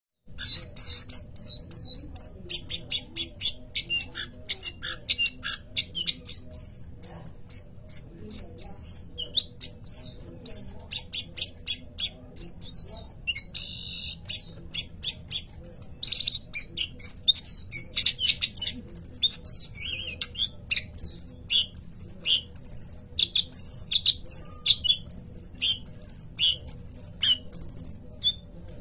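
A small songbird singing a long, varied song of rapid high chirps, trills and whistles with hardly a pause.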